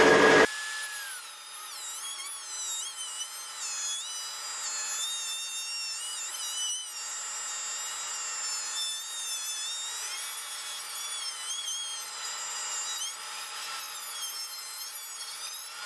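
Dremel Moto-Tool Model 275 rotary tool with a small cutoff wheel grinding into the steel bearing retainer ring on a Dana 44 axle shaft. It is a high whine that wavers up and down in pitch, starting about half a second in.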